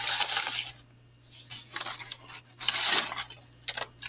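Brown paper bag and paper being handled and crinkled: irregular rustling in several bursts, loudest about three seconds in, with a few short sharp clicks near the end.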